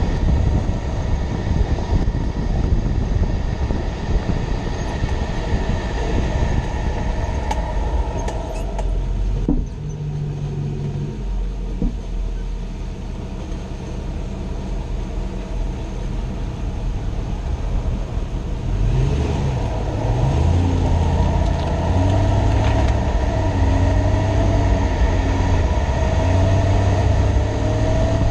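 2006 Toyota Tundra driving, with steady engine and road rumble that eases off about ten seconds in and picks up again about nineteen seconds in, the engine tone climbing slowly near the end.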